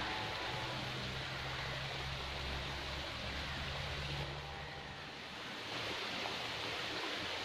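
Steady rushing outdoor noise, with a low hum underneath that fades out about five seconds in.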